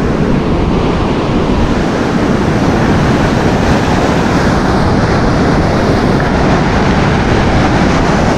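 Steady rush of surf with wind buffeting the microphone, loud and unbroken.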